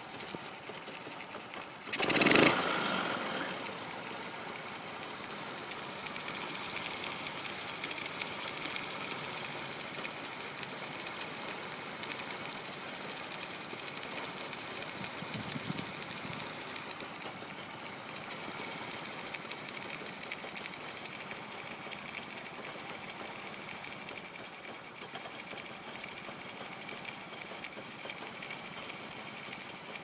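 Honda C70's small single-cylinder four-stroke engine idling roughly, a steady fast ticking run, with one sudden loud bang about two seconds in.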